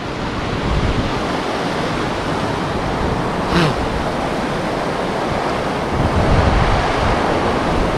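Fast floodwater rushing and churning with a steady noise, with wind rumbling on the microphone.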